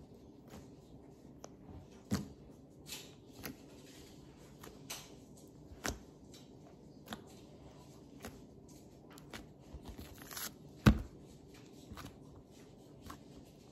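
Fingers poking and pressing soft cloud slime: scattered soft pops and crackles at irregular intervals, the loudest about eleven seconds in.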